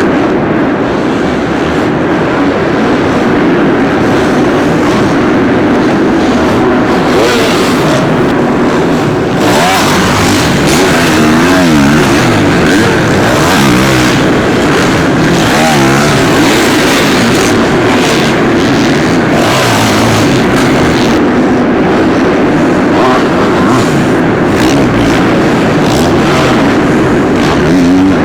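Supercross dirt bikes' engines running loud on the track, the pitch rising and falling as riders rev through gears and ease off for jumps and corners.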